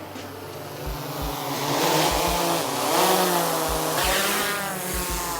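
Quadcopter drone's propellers whining close by, the pitch wavering up and down; it swells louder over the first couple of seconds and then eases off.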